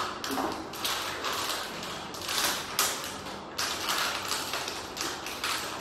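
Packaging being handled and opened by hand: an irregular run of scratchy rustling and crinkling, with a few light taps.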